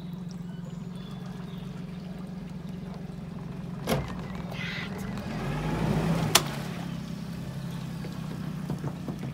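A 30 hp outboard motor running at idle, a steady low hum, as a small boat creeps in to a pontoon. About six seconds in it briefly picks up a little in pitch and loudness. There are two sharp knocks, one about four seconds in and a louder one just after the engine picks up.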